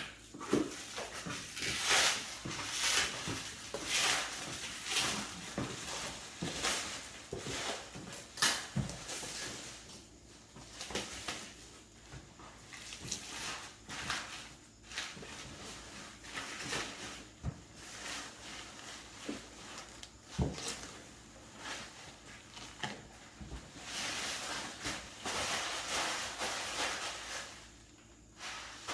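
Handling noise: irregular rustling and scraping with a few light knocks.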